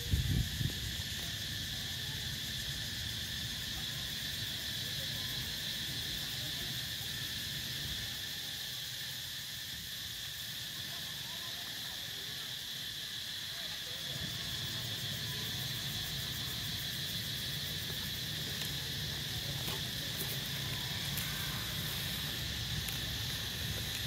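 A steady drone of forest insects: a continuous high buzz that holds the same pitch throughout, over a low rumble. There is a brief low thump at the very start.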